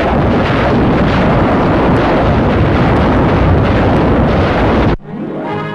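A salvo of rockets firing from a truck-mounted launcher rack: a continuous loud rushing roar that cuts off abruptly about five seconds in, where a brass fanfare starts.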